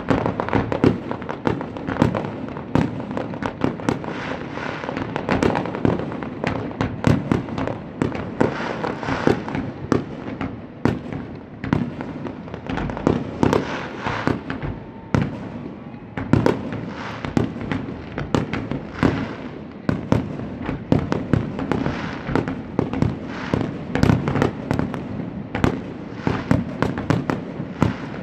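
A fireworks display going off continuously: a rapid, unbroken stream of bangs and crackling shells with a constant rumble beneath.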